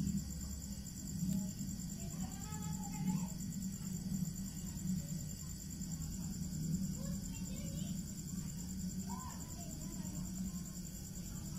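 Crickets chirping in a steady high trill over a low, steady hum.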